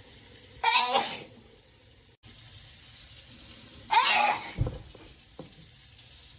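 A person sneezing twice in a sneezing fit, each a short voiced burst, the second about three seconds after the first.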